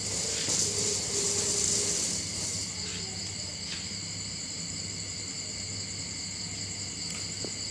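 Night insects chirping steadily in a high-pitched chorus. A brief rustling noise sits over it in the first two seconds or so.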